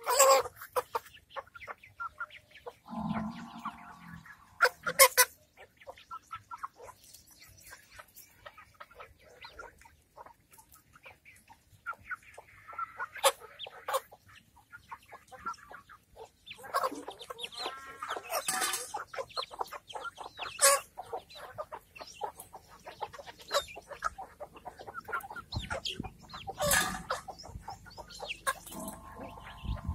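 A flock of domestic chickens, hens and roosters, clucking and calling now and then while they feed, with many small sharp clicks that fit beaks pecking grain off hard ground. A low rumble comes in near the end.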